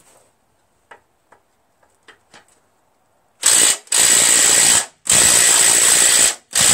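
DeWalt 12-volt brushless impact driver hammering in four bursts on a tight engine mounting bolt under a mower deck. The bolt is on there pretty good and does not break loose. A few light clicks of the socket being fitted come before the first burst, about halfway in.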